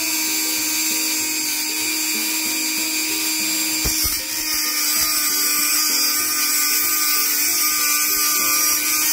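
High-speed rotary tool with a cut-off disc running with a steady high whine as the disc grinds the edge of an aluminum RC boat propeller blade to sharpen it. There is a brief dip about four seconds in.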